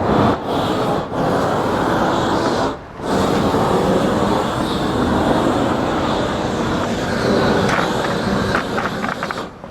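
Propane roofing torch burning steadily while heating torch-down membrane. The flame sound dips briefly three times in the first three seconds and falls away near the end.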